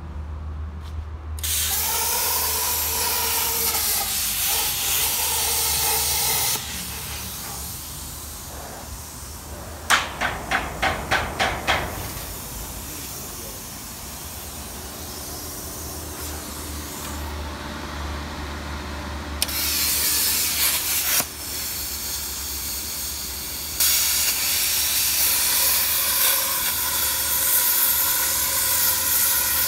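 Redbo ExpertCut 60 plasma cutter's torch hissing with a faint steady whine in three long runs, with a quick string of about seven short bursts in the middle. The machine is working again after its failed input diode bridge was replaced.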